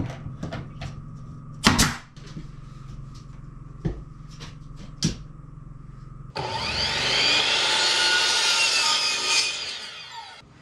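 Scattered knocks and clicks over a steady hum, then a power saw cutting through a hardwood floorboard. The cut starts suddenly about six seconds in, runs loud for about four seconds with a pitch that bends under load, and dies away near the end.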